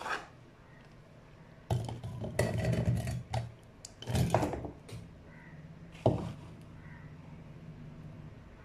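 Rose apples tipped from a ceramic bowl into a stainless-steel mixer-grinder jar: two stretches of clattering as the fruit drops onto the steel and the bowl knocks against the jar. A single sharp knock comes about six seconds in.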